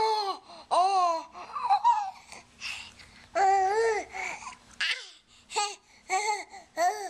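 Baby girl of about eight months making a string of short, high-pitched squealing and babbling calls, each rising and falling in pitch, about ten in all; the first ones are voiced into a plastic cup held to her mouth.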